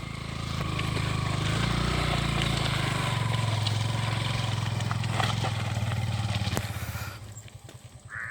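Motorcycle engine picking up revs and pulling away, running steadily under load, then fading out near the end.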